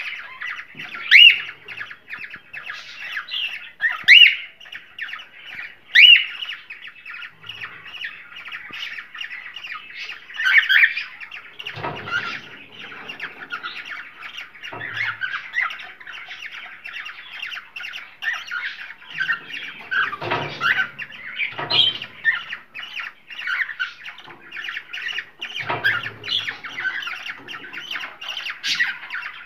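A flock of cockatiels chattering and chirping without pause, with loud, shrill squawks about one, four and six seconds in. A few low thuds are heard from about the middle on.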